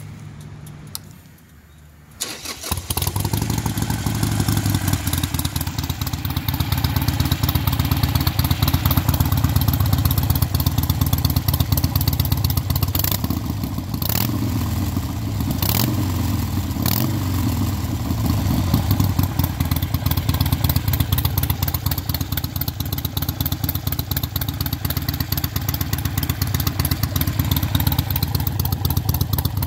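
Harley-Davidson Sportster 883 SuperLow's air-cooled 883 cc V-twin on RC Exhaust straight pipes, starting up about two seconds in and then idling loud and steady.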